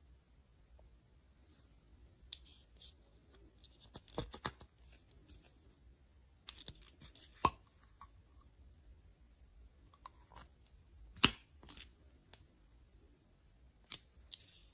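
Plastic pieces of a toy doctor set and their packaging being handled: scattered sharp clicks and taps with short crackly rustles between them. The loudest click comes about two-thirds of the way through.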